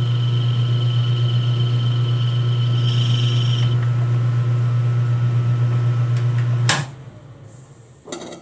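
Metal lathe running with its chuck spinning while a hand-fed spring pass is taken on aluminum stock: a steady low hum, with a thin high whine that brightens into a hiss about three seconds in and stops soon after. Near the end a sharp click as the lathe is switched off, the hum falling away as it spins down, then a short clatter.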